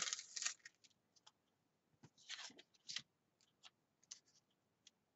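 A paper sticker being handled and peeled off its backing by hand: a soft rustle at the start and again about two seconds in, with light scattered clicks in between and after.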